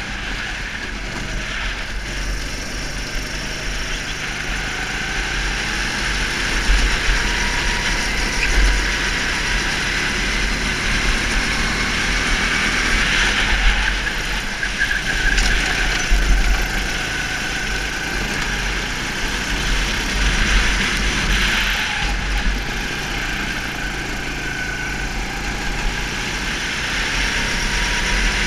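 Go-kart engine heard onboard while lapping a circuit, its pitch climbing and dropping several times as the kart speeds up and slows for corners. Wind buffets the microphone throughout.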